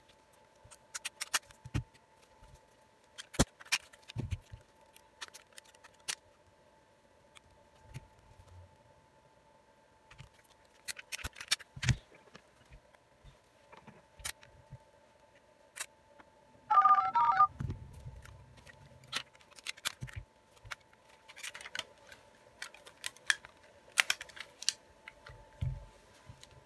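Rubber bands being stretched and snapped around a smartphone to clamp its newly fitted display, heard as scattered short snaps and clicks of handling over a faint steady hum. A louder, brief sound with a short tone in it comes about two-thirds of the way through.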